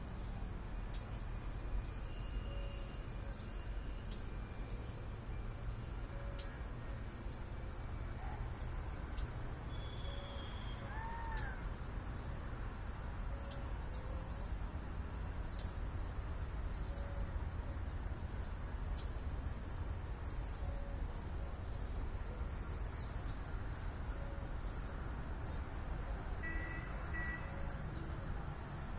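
Outdoor birdsong: many small birds chirping in short, high, quick sweeps, with a faint low note repeating about every second and a half and one arched call about eleven seconds in. A low, steady rumble of background noise runs underneath.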